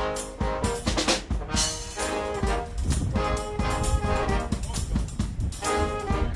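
A small brass band playing a tune: trumpets, trombone, saxophone and sousaphone, with a steady low beat under the melody.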